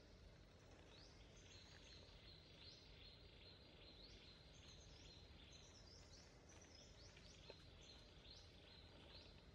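Near silence: faint outdoor ambience with high-pitched rising calls from distant wild animals, repeated about once a second, each trailing into a thin steady high note. One small click comes late on.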